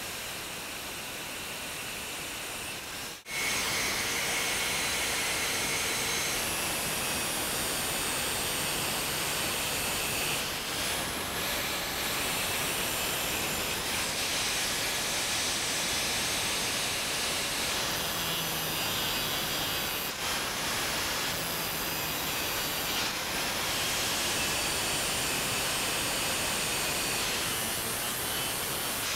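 Electric angle grinder with a cutoff wheel cutting a keyway into a steel shaft: a steady high whine over a hiss of grinding. The sound breaks off for an instant about three seconds in.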